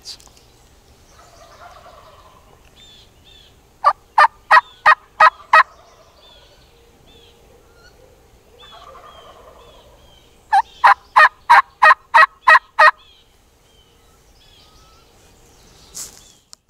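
Wild turkeys calling before dawn: distant gobbles from several toms, and two loud, close series of turkey yelps, six and then eight evenly spaced notes about three a second. Small songbird chirps run through the background.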